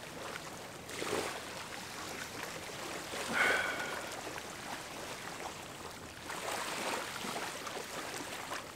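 Small waves washing gently onto a sandy beach, swelling and easing every few seconds. A brief high-pitched call about three and a half seconds in is the loudest sound.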